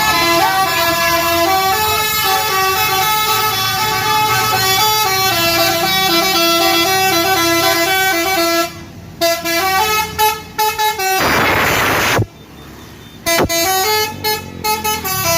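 Bus's Basuri telolet horn, a multi-tone musical air horn, playing a stepping melody for about eight seconds, then breaking into short choppy toots. A second-long hiss comes about two-thirds of the way through.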